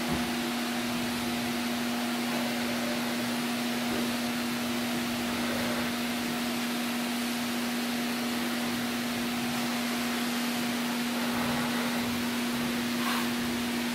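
Steady hum at one pitch over a constant hiss, with no change in level.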